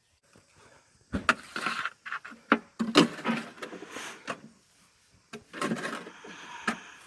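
A run of irregular knocks, clatters and scraping, starting about a second in.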